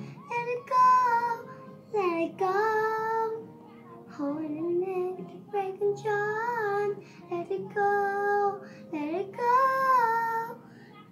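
A young girl singing, phrase after phrase, with several long held notes.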